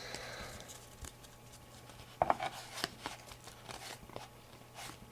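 Football trading cards being handled and flipped through one at a time: soft, irregular card clicks and slides, with a sharper snap a little past two seconds in.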